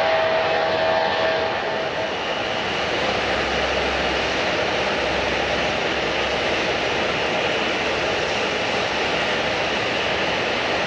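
Jet airliner engines making a steady, loud rushing roar. A whine heard at the start fades out about two seconds in.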